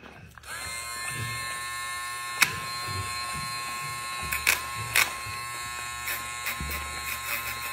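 Dremel pet nail grinder switched on about half a second in and running with a steady whine on its low setting as it files a dog's claws. A few brief, sharp scratching spikes come where the sanding drum bites into the nail.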